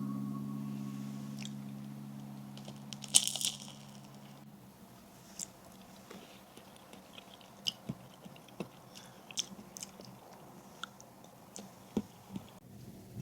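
A crisp bite into toasted sourdough with one loud crunch about three seconds in, followed by quieter scattered crunches and small clicks of chewing.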